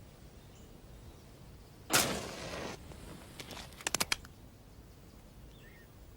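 A single gunshot about two seconds in, its report trailing off for under a second, followed by a quick run of sharp metallic clicks, typical of a revolver being handled after firing.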